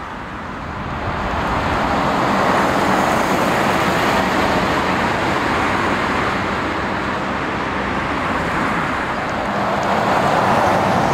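Road traffic passing close by: steady tyre noise with engine hum from cars, a coach and trucks, swelling about one to two seconds in, with a heavy vehicle's low engine hum coming in near the end.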